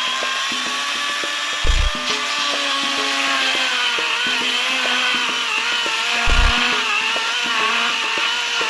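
Greenworks Pro 40-volt battery chainsaw cutting through a fallen tree, its electric motor and chain whining steadily, the pitch sagging and recovering as the bar bites into the wood. Two heavy low thumps land, one about two seconds in and another past six seconds.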